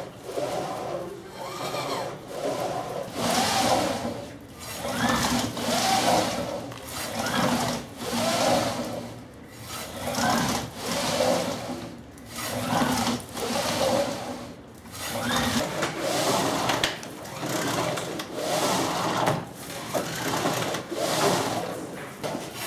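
A mechanical whirring that swells and fades about once a second, its pitch rising and falling with each swell, over a hiss.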